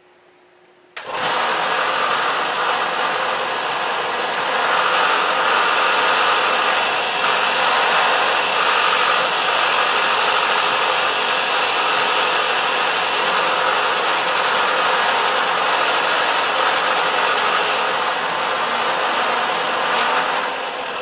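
Belt sander running and grinding a second notch into the tip of a 1/8 inch piano-wire punch: a loud, steady grinding that starts about a second in and drops away near the end.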